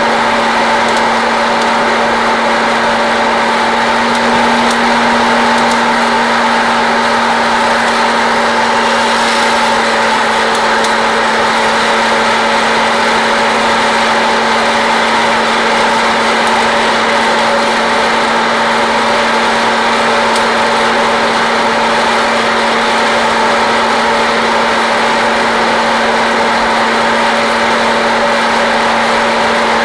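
Hot-air popcorn popper's fan motor running steadily, blowing hot air through dark-roasted coffee beans, with a few faint sharp snaps of beans cracking near the middle.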